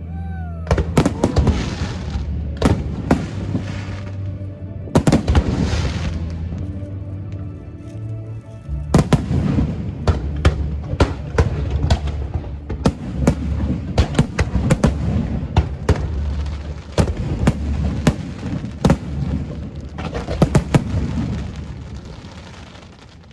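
Aerial fireworks bursting in quick succession, sharp cracks and booms coming thickest through the middle and tapering off near the end, over show music with a steady low bass.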